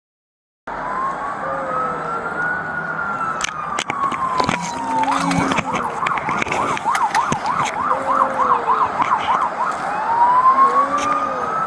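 Emergency vehicle sirens arriving: after a brief silence, a wail rises and falls slowly, switches to a fast yelp of about three cycles a second for roughly five seconds, then returns to the wail. Scattered clicks run throughout.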